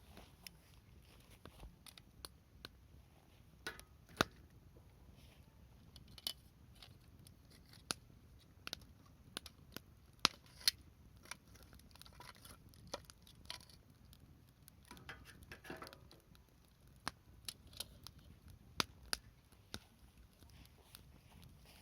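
Wood campfire crackling, with sharp pops and snaps at irregular intervals and a short flurry of crackling about fifteen seconds in.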